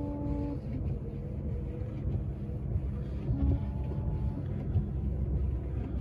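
Ford F-150 pickup running, a steady low rumble heard inside the cab while the wipers and washers are tested, with a steady whine that stops about half a second in.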